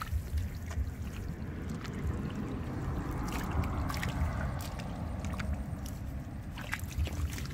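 Hands and bare feet squelching and sloshing through wet mud and shallow muddy water while groping for fish, with scattered short wet slaps and clicks over a low steady rumble.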